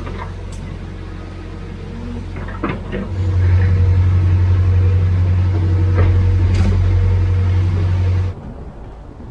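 Low, steady engine rumble with a few light knocks, growing louder about three seconds in and cutting off suddenly about a second before the end.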